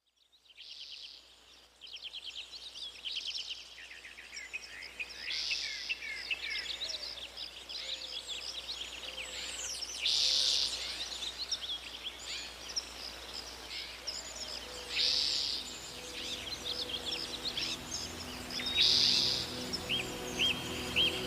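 Birds singing: many overlapping chirps and trills, with a louder call every four to five seconds. Faint sustained musical notes come in near the end.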